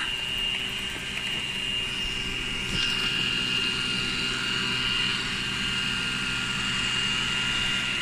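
Xiaomi Mi Robot Vacuum 1C running as it cleans: a steady high-pitched motor whine over an even rushing hiss from its suction fan, slightly louder from about three seconds in.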